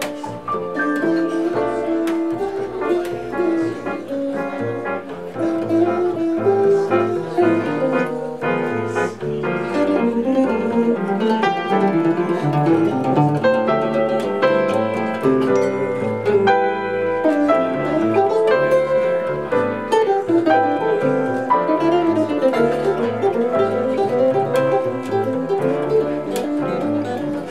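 Live jazz trio of hollow-body archtop guitar, piano and bass playing continuously, with a flowing melodic line over walking low bass notes.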